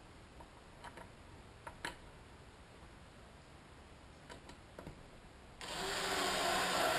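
Cordless electric screwdriver driving a wood screw into a pine board, starting about five and a half seconds in and running steadily. Before it come a few light clicks and taps as the driver and screw are set in place.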